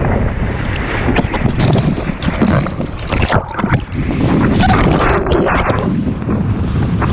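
Wind buffeting an action camera's microphone while kiteboarding at speed, mixed with the rush and splash of the board and spray on choppy water. It is loud and gusty, with irregular slaps throughout.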